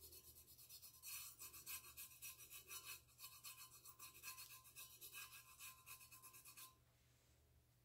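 Fingertips rubbing paint over the rough, textured surface of a painted stainless steel tumbler: faint, rapid scratchy strokes that stop near the end.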